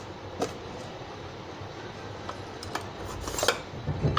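Sparse light metallic clicks and taps from submersible-pump parts being handled on the pump shaft: a shim washer is fitted and an Allen key is brought up to gauge the impeller clearance. The loudest click comes about three and a half seconds in, followed by a low handling rumble near the end.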